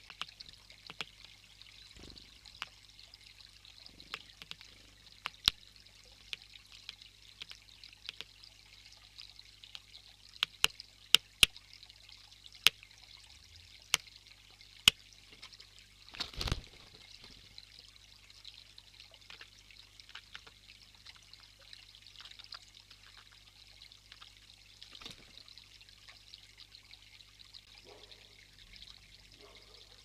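Small garden water feature trickling and splashing steadily, with a scatter of sharp taps, clustered about a third of the way in, from a great spotted woodpecker pecking at nuts in a wooden feeder tray. A brief flurry of wings about halfway through.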